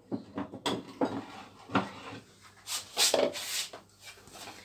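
Glass storage jars knocking and clinking as they are handled and picked up, with a short stretch of rustling about three seconds in.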